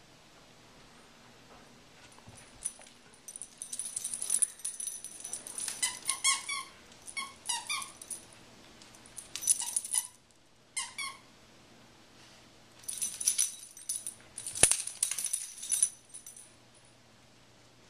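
A rat terrier chews and shakes a stuffed squirrel toy, setting off short squeaks in repeated bursts with a high rattling hiss. There is one sharp knock about three-quarters of the way through.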